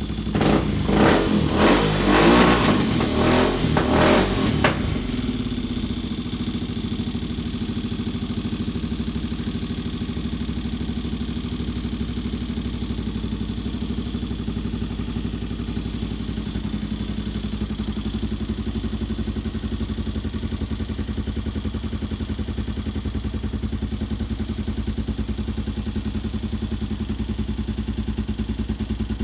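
Freshly rebuilt Suzuki DR650 single-cylinder four-stroke engine revved in about five quick throttle blips over the first five seconds, then settling to a steady idle with a clicking from the valves, which were adjusted at the wrong stroke and have a few millimetres of extra clearance.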